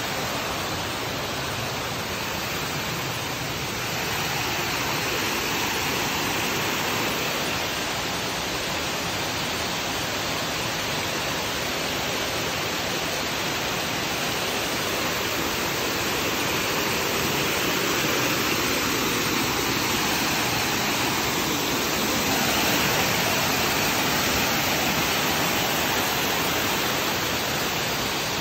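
Waterfall and stream water rushing over rocks: a steady, even rush that grows slightly louder a few seconds in.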